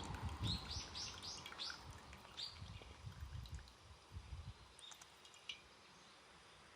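A bird chirping: a quick run of about five short high chirps in the first two seconds, then a few single chirps, over a faint low rumble.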